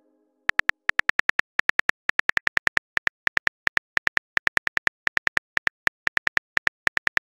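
Phone keyboard typing sound effect: a short high-pitched click for each keystroke, about nine a second in quick runs with brief pauses, starting about half a second in, as a text message is typed out.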